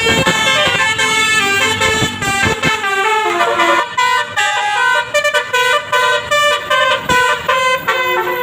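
Bus basuri (telolet) musical horn playing a quick melody of stepping tones, several notes sounding together. From about halfway through, the notes come as short separate blasts.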